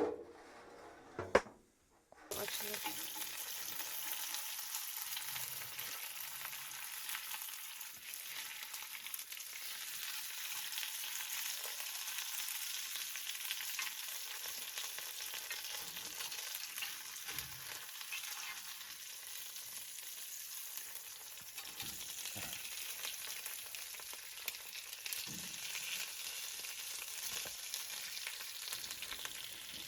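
A couple of knocks, then about two seconds in, food starts frying in a hot pan with a steady sizzle that carries on.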